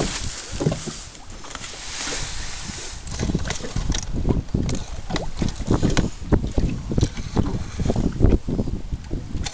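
Wind buffeting the microphone, then from about three seconds in a steady run of low bumps, knocks and rustles as the camera is handled and moved about in a small boat.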